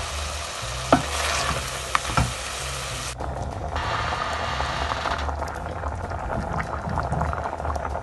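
Food frying and sizzling in a pan while it is stirred, with a utensil knocking against the pan a few times in the first seconds. The sizzle's hiss drops back about three seconds in.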